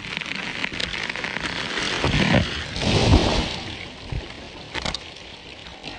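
Wood cracking and branches snapping and crashing as part of a felled tree breaks and comes down through the limbs. The heaviest crashes come about two to three seconds in, then it dies down to scattered snaps.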